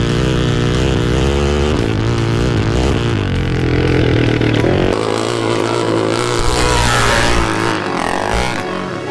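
Off-road vehicle engines running and revving, their pitch rising and falling. About five seconds in the engine note drops and a louder rushing noise takes over.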